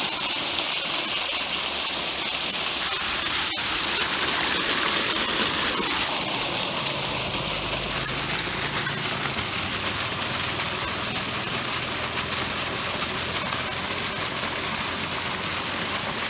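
Water gushing at full flow out of an open 4-inch PVC irrigation pipe outlet, pumped by a 7 HP motor, and splashing onto soil: a steady rushing.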